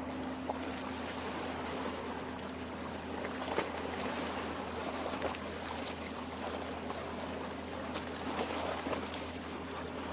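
Lake water lapping and trickling at the shore as a steady wash, with a few small splashes, over a steady low hum.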